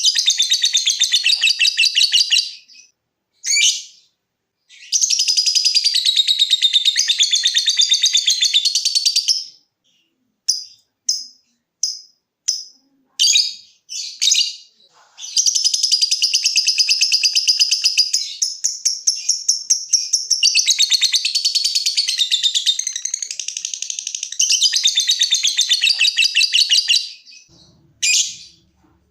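A lovebird giving long, rapid chattering trills of high, tightly spaced notes, the prized 'ngekek' song, three times. In the middle it switches to a run of separate short, sharp chirps, the ticking 'ngetik' call.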